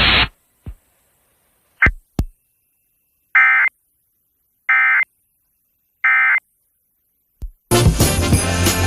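Emergency Alert System end-of-message data tones broadcast over FM radio: three short, identical buzzy bursts of the digital code, each about a third of a second and spaced a little over a second apart, signalling that the alert is over. Christmas music with jingle bells comes back on near the end.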